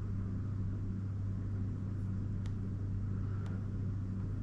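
Steady low electrical hum over a faint background hiss, with a couple of faint clicks about two and a half and three and a half seconds in.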